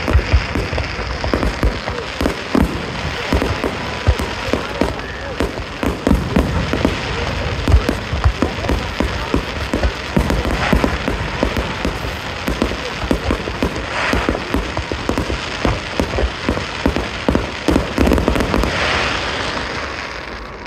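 Fireworks display: a dense, continuous run of bangs and crackles from shells and crackling stars bursting in quick succession, easing off near the end.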